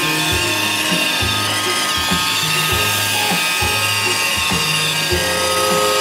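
iRobot Roomba 531 robot vacuum running on carpet: a steady motor whine made of several fixed tones, with an uneven low hum that keeps cutting in and out.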